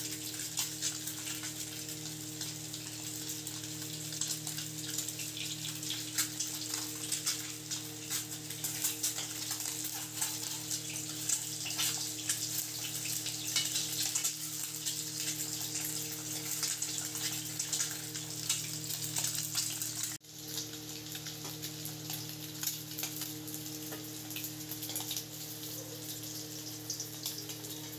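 Peeled boiled eggs shallow-frying in hot oil in a kadhai: a steady sizzle dotted with frequent sharp pops and crackles as the eggs spatter.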